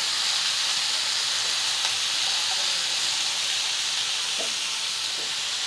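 Steady hissing sizzle of chopped vegetables (cauliflower stalks, potato, radish) frying in oil in a non-stick wok while they are stirred with a wooden spatula.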